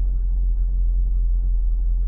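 A Holden Commodore SS's 6.2-litre V8 idling with a steady low rumble.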